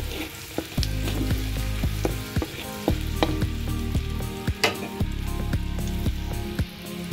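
Butter sizzling and foaming in a hot metal pan, a steady hiss broken by many sharp pops and crackles.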